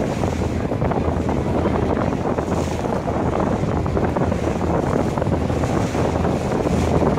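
Wind buffeting the microphone on a harbour ferry's deck, in gusts, over the steady low drone of the ferry's engine and the wash of water.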